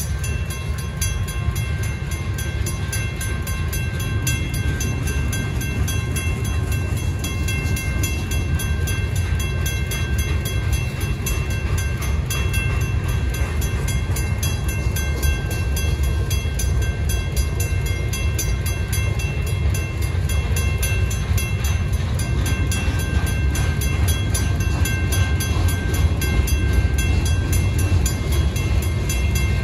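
Freight cars of a manifest train rolling through a grade crossing: a steady low rumble of wheels on rail. The crossing signals' bells ring continuously over it, and the sound builds slightly louder toward the end.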